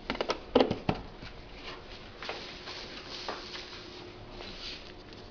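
Flat-pack table parts being handled while fittings are pushed into holes and locked: a quick run of sharp knocks and clicks in the first second, then faint scraping and rustling.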